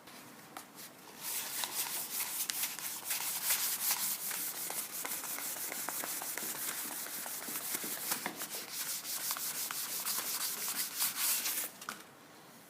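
Hand sanding: an abrasive rubbed back and forth in quick strokes. It starts about a second in and stops abruptly near the end.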